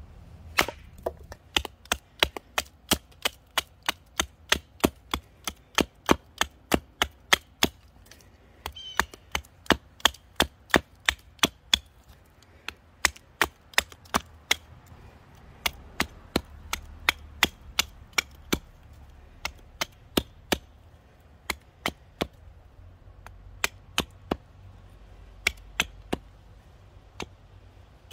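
A hatchet chopping the end of a wooden stick into a spear point, a long run of sharp strikes into wood. They come about two a second at first, then pause and continue more sparsely and unevenly.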